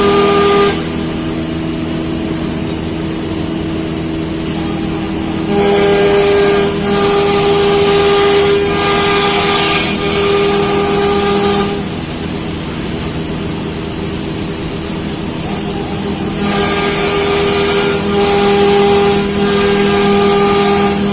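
CNC router running: a steady spindle whine with a hiss underneath. The noise grows louder over two stretches of about six and five seconds, about five seconds in and again near the end, as the router cuts.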